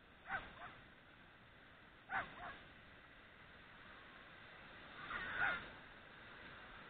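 Bird calls, three times: two short calls, each a pair of notes falling in pitch, then a longer and louder call about five seconds in.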